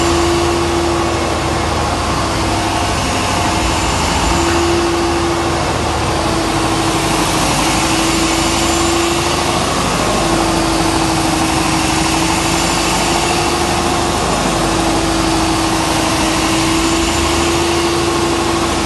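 Engine of a 450 kW biogas-fuelled generator set running steadily: a loud, even machine noise with a constant hum.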